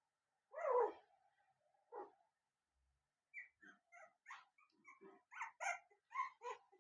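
Puppy whining and yipping: a louder yelp about half a second in, another short one near two seconds, then a quick run of short, high whimpers from about three seconds on.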